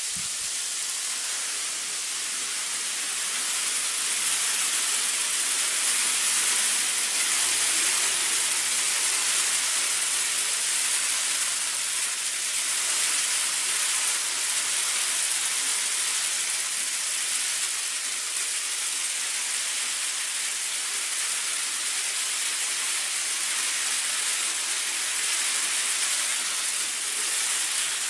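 Steady hiss of hard little snow pellets falling on the frozen ground and brush.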